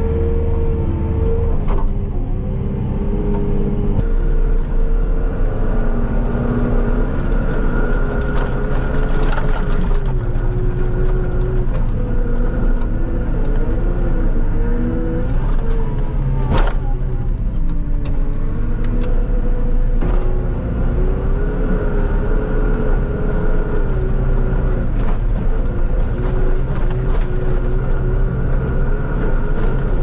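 Bobcat TeleSkid skid steer's diesel engine running under load as it pushes snow with a snow pusher, its pitch rising and falling with the throttle. There is one sharp clunk about halfway through.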